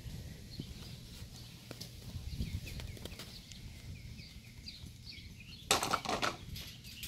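Outdoor ambience with small birds chirping throughout over a low steady background. About six seconds in there is a short cluster of sharp knocks and clatter.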